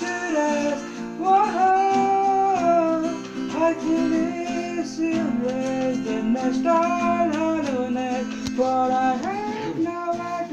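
A man singing a song in held, wavering notes, accompanied by an acoustic guitar strummed in steady chords.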